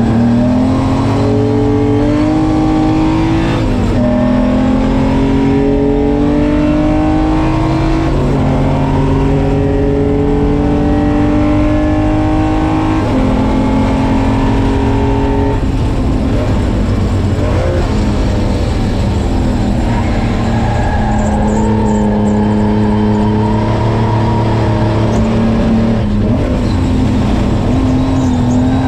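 Austin-Healey 3000's straight-six racing engine heard from inside the cabin, pulling hard through the gears. Revs climb and drop sharply at upshifts about four and eight seconds in, hold high, then fall away as the driver lifts off midway, run lower for a while, and pick up again near the end.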